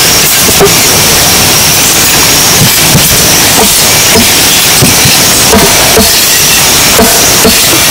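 Machete blade chopping into a green log, a sharp strike roughly every half second to a second, over a loud steady hiss.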